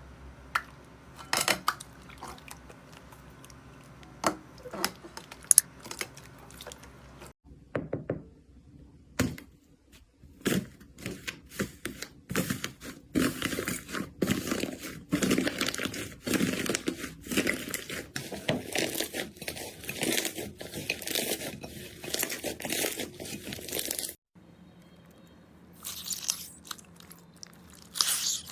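Slime being squeezed and poked by hand, making crisp crunching and crackling clicks, scattered at first and then a dense run of crackles through the middle, with abrupt changes between short clips.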